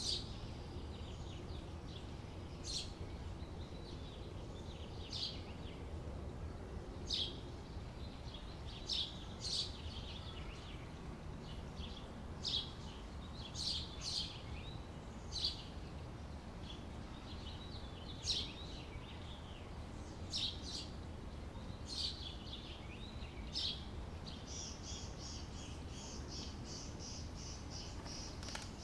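Outdoor summer ambience: scattered short, high bird chirps and calls every second or two over a steady low background rumble. About three-quarters of the way through, a rapid, even high trill starts and keeps going.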